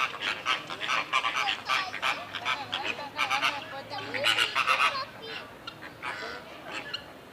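Several domestic fowl calling over one another in quick, short repeated calls, dense for about five seconds and then thinning out and growing quieter.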